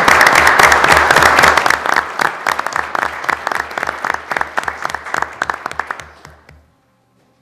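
Audience applause from a seated crowd, loudest at first, then thinning to scattered claps and stopping about six and a half seconds in.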